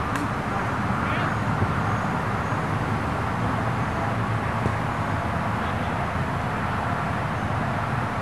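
Steady outdoor background noise with a low rumble, with faint distant shouts from players on the field and a single soft knock about halfway through.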